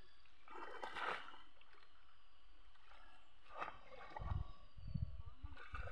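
Shallow muddy pond water splashing and sloshing in short bursts as a person wades and plunges a net fish trap into it, followed by a run of dull low thumps in the second half.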